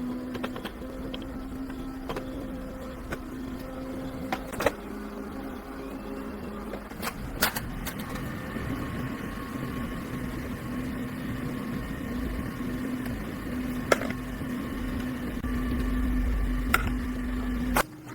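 A steady mechanical hum with scattered sharp clicks and knocks, as of metal parts being handled; it cuts off abruptly near the end.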